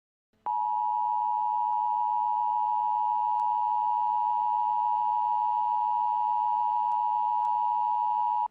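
NOAA Weather Radio warning alarm tone: a single steady high-pitched tone that starts about half a second in, holds for about eight seconds, and cuts off sharply. It signals an alert broadcast, here a tornado watch.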